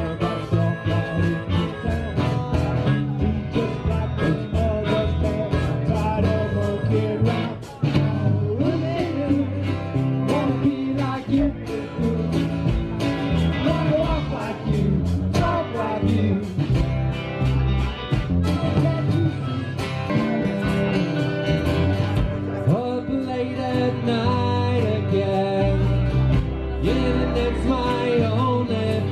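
Live band playing a blues-style number on electric guitars and drums, with a harmonica and a woman singing at times.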